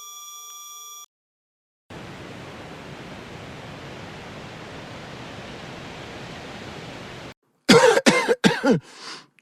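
A steady electronic tone for about a second, then, after a brief gap, a steady hiss. Near the end a person coughs several times in quick succession, loudly.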